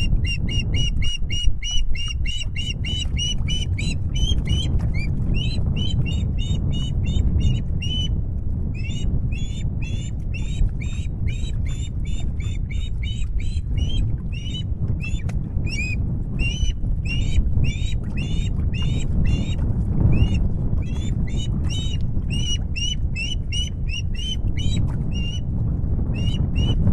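Osprey calling: a long run of short, high notes, about four or five a second with only brief pauses, over a steady low rumble.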